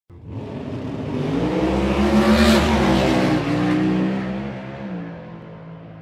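Drag racing car accelerating hard past the listener: the engine note climbs and grows louder, is loudest about two and a half seconds in, then drops in pitch and fades as the car moves away.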